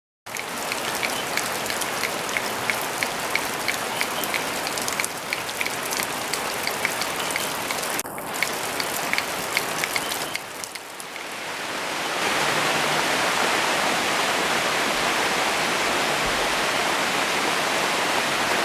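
Rain falling, with many individual drops ticking distinctly over the steady hiss. After a brief lull about ten seconds in, it turns to a denser, even hiss of heavier rain.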